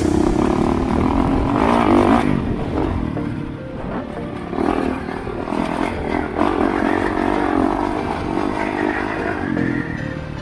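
Honda CRF450RX's single-cylinder four-stroke engine on the move, revving up and down as the rider works the throttle, with wind noise on the helmet-cam microphone.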